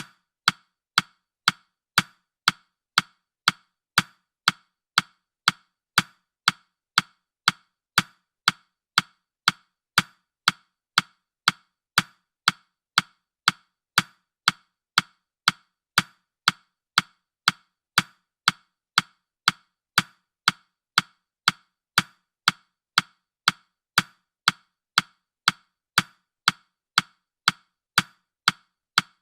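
Countdown timer's ticking sound effect: short, sharp clock-like ticks, evenly spaced at about two a second.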